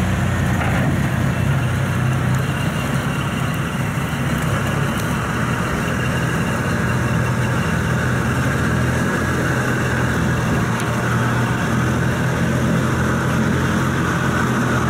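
Kubota rice combine harvester's diesel engine running steadily at an even, unchanging pitch.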